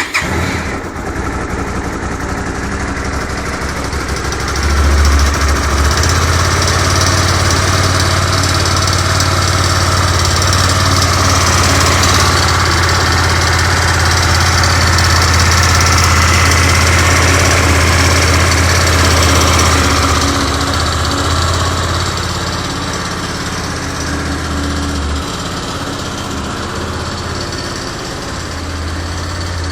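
Kasinski Comet GTR 250's V-twin engine idling just after starting, with a rattle that sounds like valve noise but comes from the worn catalytic converter loose inside the exhaust. The running gets a little louder after about five seconds and eases back around twenty seconds.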